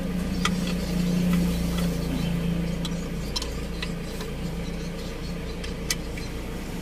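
A few scattered sharp metallic clicks and taps as a socket wrench is fitted to and worked on the timing-belt tensioner bolts, over a steady low hum.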